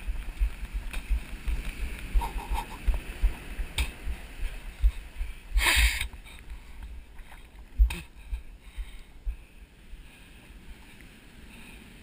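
Sea water churning around a GoPro in its waterproof housing, heard muffled, with constant low thumps and knocks against the case. A louder rushing surge comes about six seconds in and a sharp knock shortly after, then it settles quieter.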